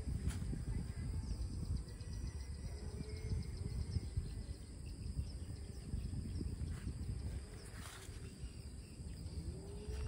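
Outdoor ambience: insects droning in a steady high tone, with a few short bird-like chirps and calls, over a constant low rumble.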